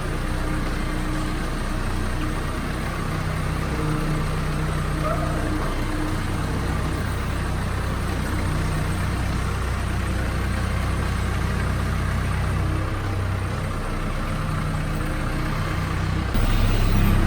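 Case 580 backhoe's engine running steadily, its note shifting a little, then abruptly louder near the end.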